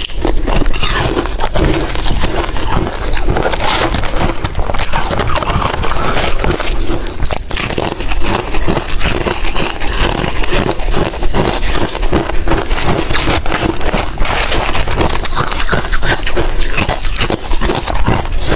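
Ice being bitten and chewed close to the microphone: a dense, unbroken run of loud crunching and crackling.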